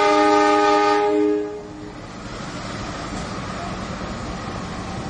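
Diesel locomotive's horn sounding a long chord of several notes that cuts off about a second and a half in, followed by the steady rumble of the locomotive at the platform.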